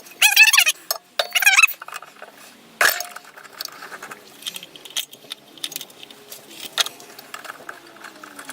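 Steel parts and tools being handled: one sharp metallic clank with a brief ring about three seconds in, then scattered light clinks and taps. A voice is heard briefly at the start.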